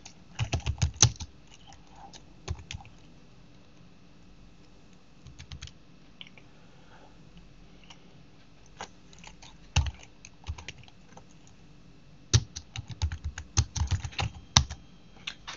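Computer keyboard typing a short command in uneven runs of keystrokes with pauses between words, a quick burst at the start and the longest run of keys in the last few seconds.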